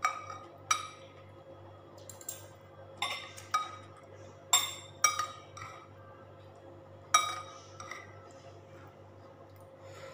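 Metal spoon clinking against a ceramic soup bowl while scooping broth: about eight sharp, ringing taps at irregular intervals, the loudest a little past the middle.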